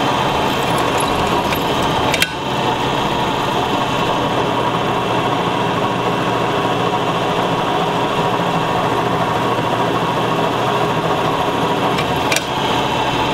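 Drill press running steadily, its bit cutting into two clamped steel knife blanks to drill the traction-groove holes along the spine. Two sharp clicks, about two seconds in and near the end.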